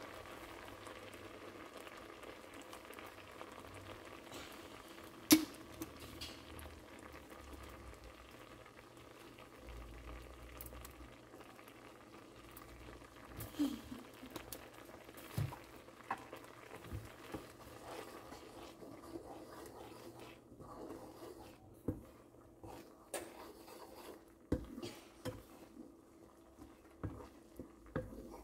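A kho quẹt sauce of fish sauce, sugar and dried shrimp bubbling steadily in a pan. Scattered sharp taps and scrapes come from a bamboo spatula stirring it, more often in the second half.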